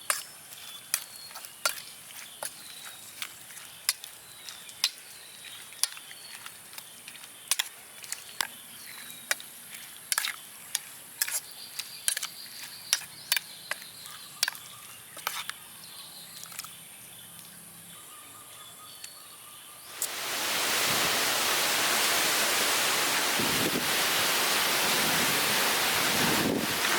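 Light, irregular clinks and taps of a spoon against a bowl while a dipping sauce is mixed. About twenty seconds in, a loud steady hiss starts suddenly and carries on.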